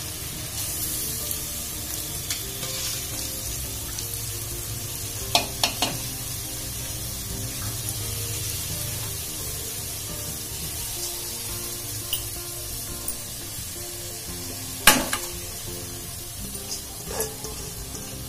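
Soaked basmati rice sizzling as it fries in the oil and chickpea masala in a metal pot, stirred with a slotted metal spatula. The steady sizzle is broken by a few sharp clinks of the spatula on the pot; the loudest comes about fifteen seconds in.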